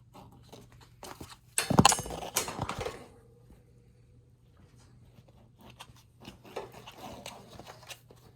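A kitten batting and pouncing on a crinkle mouse toy: bursts of crinkling rustles and light knocks, loudest about two seconds in, with a softer flurry near the end.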